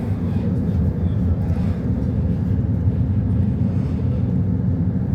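Steady low rumble of engine and road noise inside a moving public transport vehicle.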